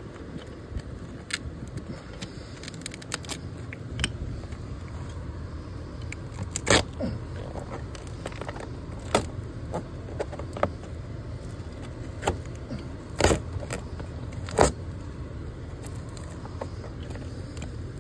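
Gorilla tape being peeled and snipped off vinyl siding: scattered sharp crackles and snaps, a handful of them louder, over a steady low rumble.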